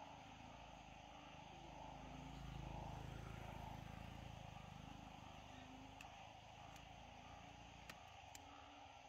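Faint outdoor ambience: a steady low hum and hiss, with a low rumble that swells and fades about two to four seconds in, and a few light clicks near the end.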